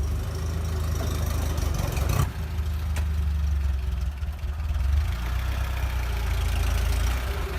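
UAZ off-roader's engine idling steadily, with a single knock about two seconds in and a sharp click a moment later.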